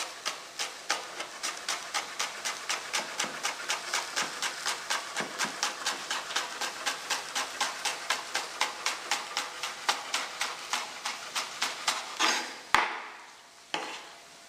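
Chef's knife rapidly chopping fresh green herbs on a wooden cutting board, an even run of about five strokes a second. The chopping stops about twelve seconds in, followed by two sharper knocks.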